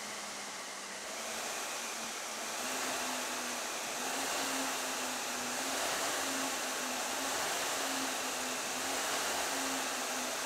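Concept2 SkiErg's air-resistance flywheel fan whirring as the handles are pulled down in repeated strokes. The whoosh builds over the first few seconds and then holds steady, with a faint hum that swells about once a second with each pull.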